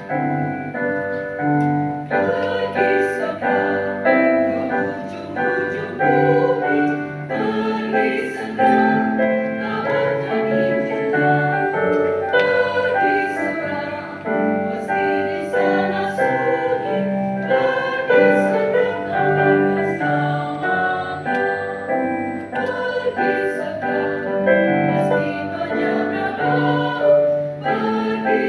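A mixed choir singing in harmony with keyboard accompaniment.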